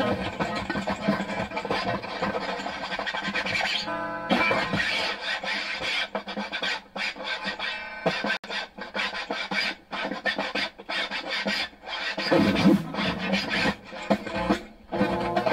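Band music led by a noisy, rasping electric guitar texture. From about the middle onward it is broken up by many short, abrupt gaps.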